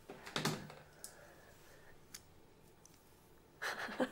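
Quiet room tone with a soft breath about half a second in, and a short breathy laugh from a young woman near the end.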